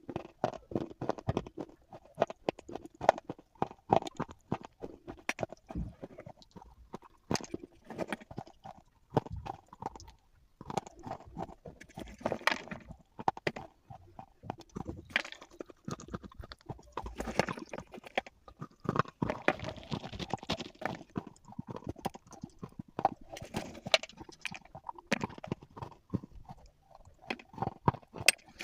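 Slate pencils being bitten and chewed close to the microphone: a continuous run of crisp crunches and clicks, several a second, with a couple of brief lulls.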